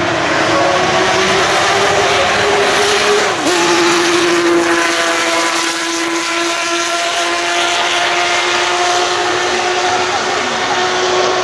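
Honda RA272's 1.5-litre transverse V12 Formula One engine running at high revs as the car passes under full throttle, a steady high-pitched note. About three and a half seconds in the pitch dips sharply and climbs straight back, as at a gear change, then holds high as the car pulls away.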